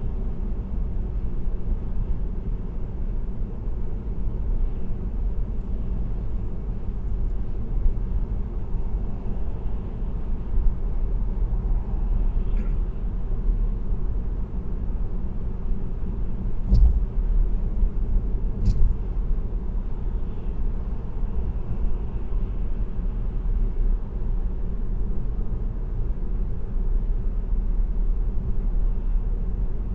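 A car cruising on an expressway: steady low road and engine rumble, with two short thumps about two seconds apart past the middle.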